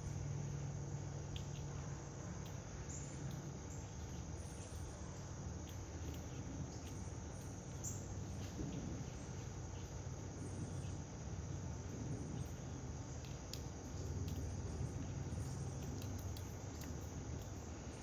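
Insects, crickets by their sound, trilling in a steady high drone over a low steady rumble, with a few faint ticks scattered through.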